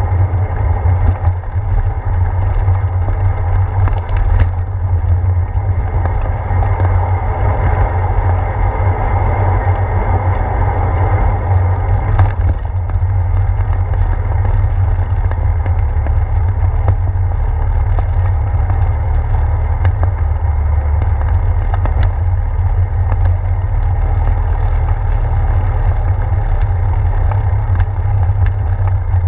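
Steady low rumble of wind and ride vibration picked up by a handlebar-mounted GoPro on a bicycle rolling over a wet path and a boardwalk, with a few faint knocks.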